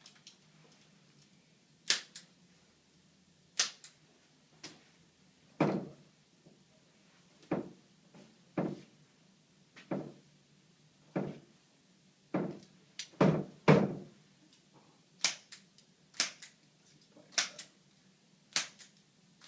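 Activator hand-held spring-loaded chiropractic adjusting instrument firing repeatedly: sharp clicks about once a second, many followed closely by a fainter second click, with a cluster of quicker clicks about two-thirds of the way through.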